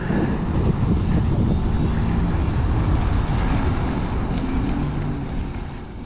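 Motorized watercraft engine running loudly and steadily with a low rumble, fading away near the end.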